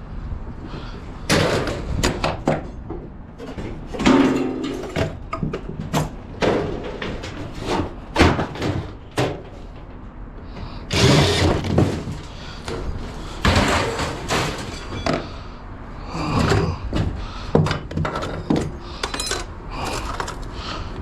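Scrap metal being handled and thrown: a run of irregular clanks, bangs and thumps, some strikes ringing briefly.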